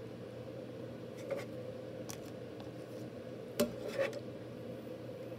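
Rigid plastic card holders clicking and rubbing as one encased baseball card is lifted away and another set down in its place: a few sharp clicks, the loudest two about three and a half and four seconds in, over a steady low hum.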